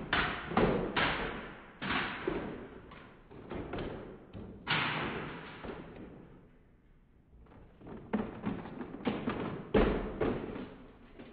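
Plastic toy trucks tumbling down wooden stairs: a run of thumps and knocks as they hit step after step. The impacts die away about halfway through, and after a second or so of quiet a second run of impacts comes as another toy vehicle comes down.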